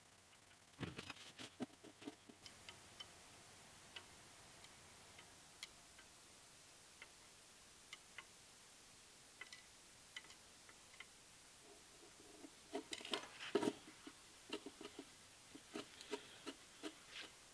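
Scattered light clicks and small metallic knocks of hand tools on the Delta 6-inch jointer's tables and base as the table gib screws are adjusted. A short flurry comes about a second in, single ticks follow, and a busier run of knocks comes near the end.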